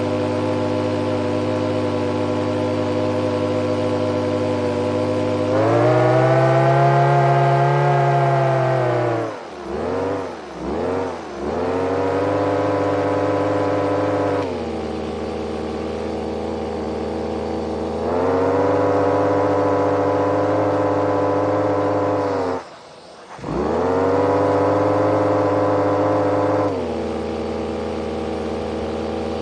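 Small engine, which the owner calls a supercharged turbine, running at idle with a steady buzzing hum. Its speed steps up and down several times, sags and recovers twice about ten seconds in, and almost dies for a moment about three quarters of the way through before picking back up.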